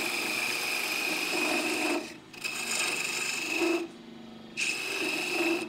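A bedan cutting into a spinning wood blank on a lathe, taking a sizing cut and throwing off shavings. The scraping hiss carries a steady high ring and comes in three passes, with short breaks about two and four seconds in.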